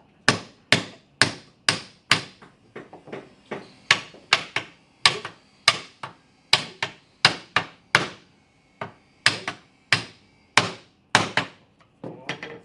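Hammer blows on wood, about two a second with a few lighter taps among them, driving a glued panel and its through-housed battens down into a wooden frame.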